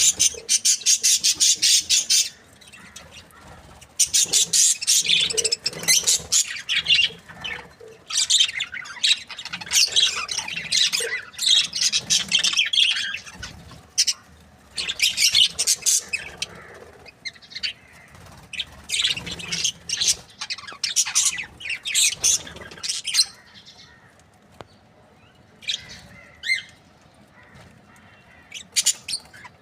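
Budgerigars chattering and chirping in rapid, dense bouts with short pauses, thinning to scattered chirps near the end.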